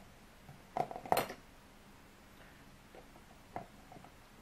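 Small metal parts clinking in a plastic tub as they are fished out of a soak in white spirit: a quick cluster of clinks about a second in, and one more later.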